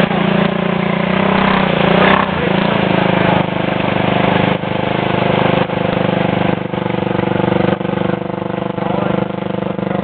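Arctic Cat 650 ATV engine running steadily. Its note dips briefly about once a second, and its pitch shifts about two seconds in.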